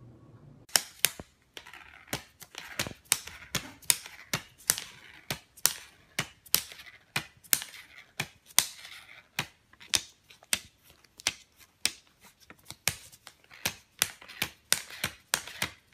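An uneven run of sharp clicks or taps, about two to three a second, starting about a second in.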